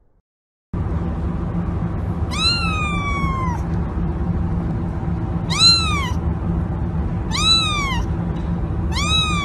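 A kitten mewing four times, each a high cry that rises and then falls, the first the longest, over a steady low background hum. The mewing begins after a brief silence at the start.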